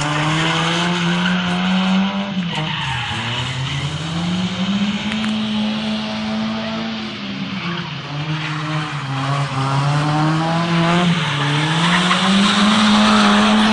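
Mazda Miata drifting: its engine is held at high revs, dipping twice and climbing back, while the rear tires squeal and skid on the asphalt, loudest near the end.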